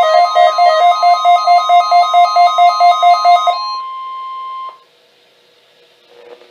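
Weather radio alert: a pulsing electronic alarm alternating between two pitches about five times a second, over the steady 1050 Hz NOAA Weather Radio warning tone that marks the start of an alert broadcast. The pulsing stops about three and a half seconds in, the steady tone carries on alone for about another second and cuts off, and a brief gap of near silence follows.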